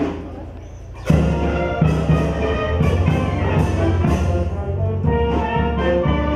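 A brass band with drums strikes up about a second in, after a couple of single drum beats, and plays on in full with regular percussion strikes.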